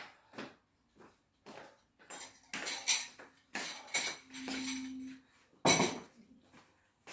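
Kitchen utensils and pans clattering and knocking in irregular bursts, with the loudest clank a little before the end and a brief low hum near the middle.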